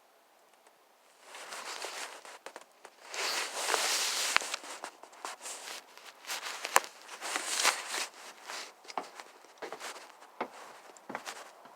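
Close rustling and crunching with scattered sharp clicks, starting about a second in and loudest a few seconds later.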